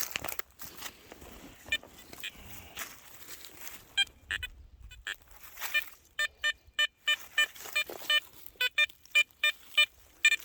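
Garrett Ace Apex metal detector giving short, repeated target beeps, three or four a second through the second half, as it is swept over a hole. Before that, digging noise in soil with a few single beeps.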